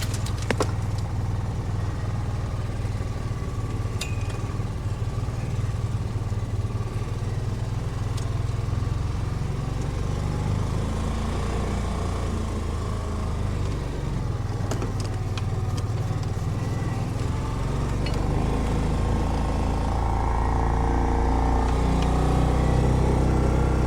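Kawasaki Mule utility vehicle running as it drives along, a steady low engine hum with a few sharp knocks and rattles. The engine gets louder over the last several seconds.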